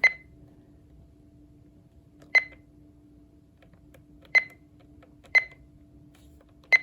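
Button-press beeps from the Oregon Scientific WR606 weather radio's piezo as its menu is stepped through: five short high beeps, unevenly spaced about one to two seconds apart, over a faint steady hum.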